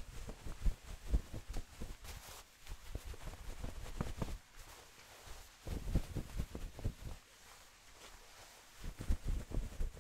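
Fluffy towel rubbed and brushed against the microphone: soft fabric rustling in bouts of a second or two, with short pauses between.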